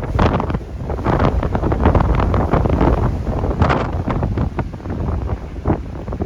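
Strong gusty wind buffeting the microphone: a loud, low, ragged rumble with irregular gusts.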